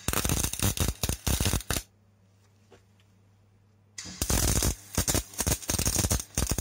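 Wire-feed (MIG) welder's arc crackling as short welds are laid on steel: one run of about two seconds, a pause, then a second run from about four seconds in, each run broken by brief stops.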